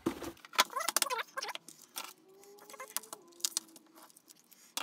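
Cardboard and paper handled on a tabletop: scattered taps, scrapes and rustles as a box is slid aside and a taped cardboard mailer is picked up. A short, high, wavering pitched sound comes about a second in.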